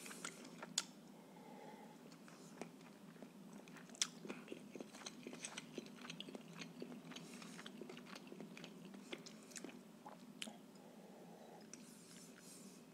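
Faint, close mouth sounds of a man drinking from a glass: sips, swallows and many small wet clicks.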